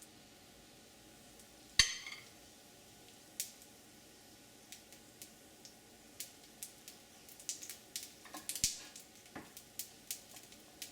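Mustard seeds in hot mustard oil in a wok, beginning to pop: a sharp metallic clink about two seconds in, then scattered pops and crackles that come more and more often toward the end.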